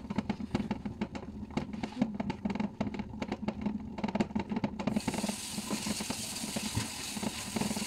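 Lid of a pot steaming chicken rattling rapidly and irregularly on the boil, over a steady low hum. About five seconds in, a steady hiss sets in.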